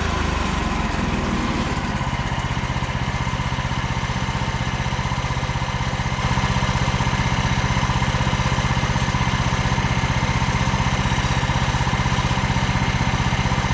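The petrol engine of a Frontier OS27 portable bandsaw mill running steadily, driving the band blade as the saw head finishes a cut through a Douglas fir log. Its note shifts in the first couple of seconds, then holds steady, and is a little louder from about six seconds in.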